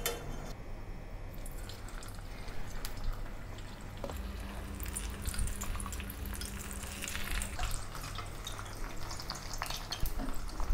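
Beancurd-skin pork rolls deep-frying in oil at medium heat, about 150 °C: a steady sizzle with many small crackles and pops.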